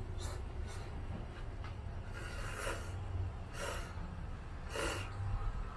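Shiba Inu sniffing with its nose to the ground: several short puffs of breath, spaced about a second apart, over a steady low rumble.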